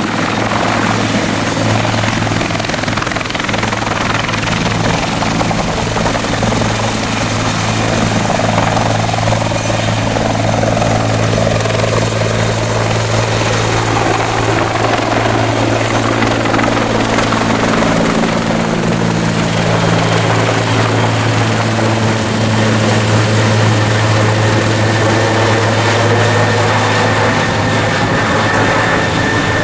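Bell 412 twin-turbine helicopter running: a steady low rotor beat under a high, thin turbine whine, with a slowly shifting sweep in the mid tones.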